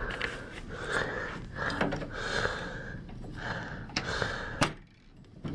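A person breathing hard in a run of short breathy hisses about half a second apart, with two sharp clicks near the end.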